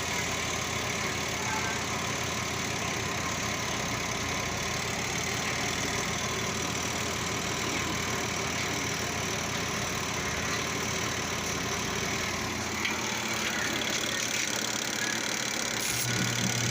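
A steady mechanical running noise like an idling motor, with a strong low hum coming in near the end.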